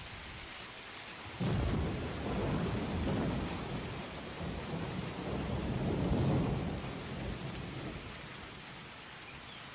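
Steady rain with a long roll of thunder that breaks about a second and a half in, rumbles for several seconds and slowly dies away.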